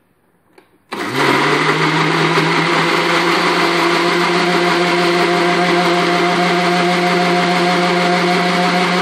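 Electric mixer grinder switched on about a second in, its motor spinning up within a moment and then running steadily at full speed, crushing chopped tomatoes with water and sugar into juice.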